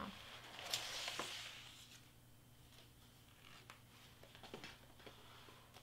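Faint handling of a cardstock craft prop. There is a short papery rustle about a second in, then a few light taps and clicks.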